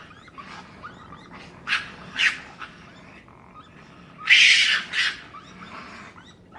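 An animal making short, breathy, hiss-like sounds, four or five in all. The longest and loudest lasts about half a second, a little past the middle.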